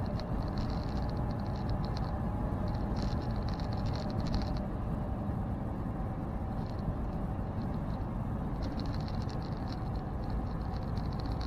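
Semi truck cab noise while driving on the road: the engine and tyres give a steady low rumble. A faint, high, rapidly flickering buzz comes and goes three times, near the start, around three seconds in, and from about nine seconds on.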